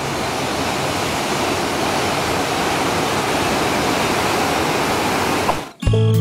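Waterfall plunging into a rocky pool: a steady rush of falling water. It cuts off near the end as music begins.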